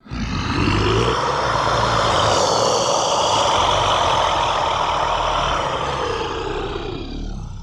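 Designed dragon sound effect: one long, harsh, noisy sound with a low rumble beneath, starting abruptly and holding for about eight seconds before easing off at the end.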